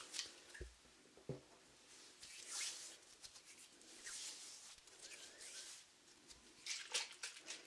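Faint soft rustling swells close to the microphone, then a quick cluster of light clicks near the end.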